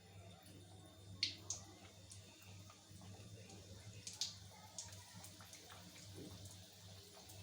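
Samosa frying in hot oil: a faint sizzle with a few sharp pops, two just over a second in and two more about four seconds in.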